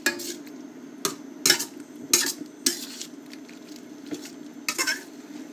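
A utensil clinking and scraping against a frying pan about six times at irregular intervals as cream and mascarpone sauce is stirred, over a steady low hum.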